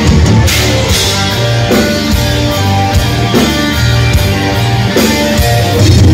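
Live heavy metal band playing an instrumental passage of the song: distorted electric guitars, bass guitar and a drum kit, with accented hits about every second and a half. Loud, heard from among the audience.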